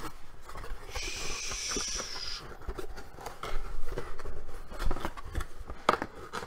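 Cardboard packaging being handled and unfolded: irregular rustles, scrapes and light knocks, with a steady sliding or tearing hiss about a second in that lasts about a second and a half.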